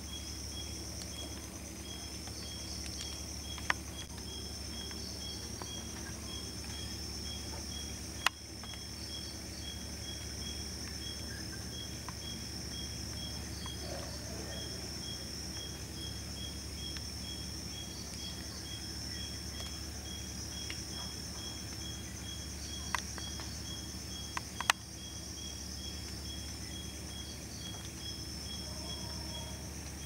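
Night insect chorus: crickets trilling steadily high up, with a second insect chirping in an even beat about twice a second. A few sharp clicks stand out above it.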